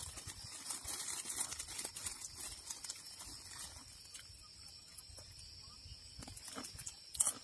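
Forest insects keeping up a steady high-pitched buzz, with scattered light taps and knocks over it and a sharper knock near the end.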